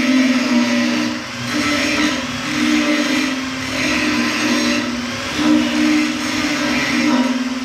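A motor running with a steady hum whose pitch steps up and down about once a second, over a hiss that swells and fades.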